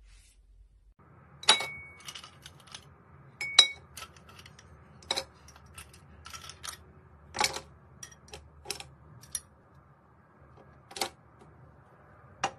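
Ice cubes dropped one by one into a tall empty drinking glass, each landing with a sharp clink, with smaller ticks as the cubes knock and settle. The first two clinks leave a brief ringing tone in the glass.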